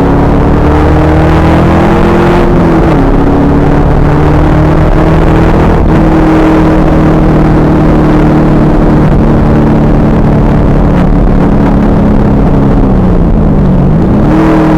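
2000 Pontiac Trans Am Firehawk's LS1 V8 at speed on track. The engine note climbs under acceleration and drops sharply on an upshift about three seconds in, then climbs again and holds. Near the end it falls and comes back up as the car lifts off and gets back on the throttle. The recording is loud and heavily distorted.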